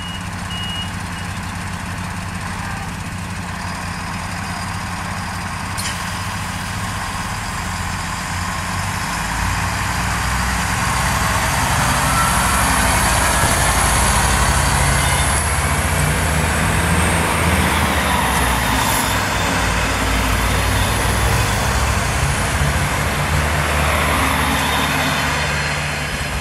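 Siemens Desiro diesel multiple unit running close by, its underfloor diesel engines and rolling noise growing louder over the first half and then staying loud. A horn note ends about a second in.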